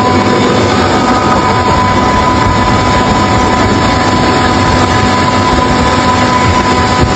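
Funuoer Smart6000 air compressor running steadily at full load, with its drive at 200 Hz: a loud, even machine noise with a constant high whine over it.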